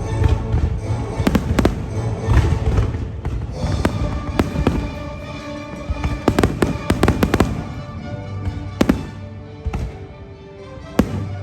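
Fireworks bursting in quick succession, with a dense cluster of sharp bangs past the middle, over a steady music soundtrack. The bursts thin out and go quieter shortly before a last sharp crack near the end.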